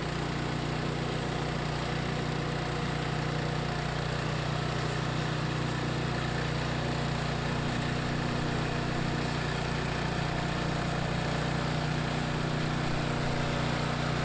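Portable band sawmill's small gasoline engine running steadily as its band blade cuts through a pine log on the mill's first cut.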